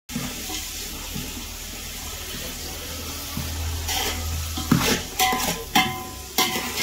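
Chopped vegetables sizzling in oil in a large metal pot as they are stirred with a spatula. From about four seconds in come sharp scrapes and knocks of the spatula against the pot.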